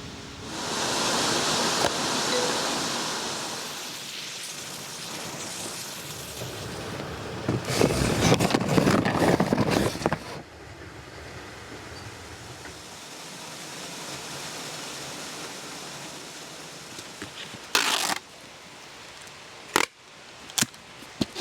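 Warehouse order-packing noises: a rushing hiss, then a loud crackling rustle for a couple of seconds, a quieter steady hiss, and a few sharp short snaps near the end.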